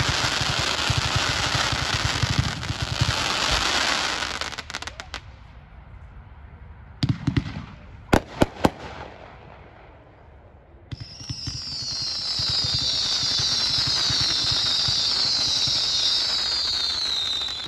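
A 500-gram consumer firework cake firing. A rapid volley of shots and crackling breaks fades out about four seconds in. A few sharp single bangs come around eight seconds. From about eleven seconds a second dense volley of crackle carries a high whistling tone that slowly falls, then cuts off near the end.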